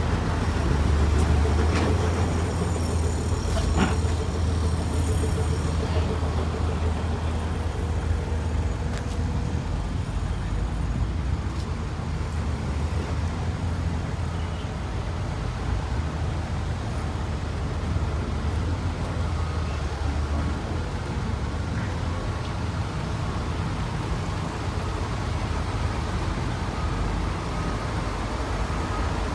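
Heavy vehicle engines running with a low, steady rumble and road noise, swelling in the first several seconds and again about two-thirds through. A high, thin squeal sounds a second or so in and lasts a few seconds.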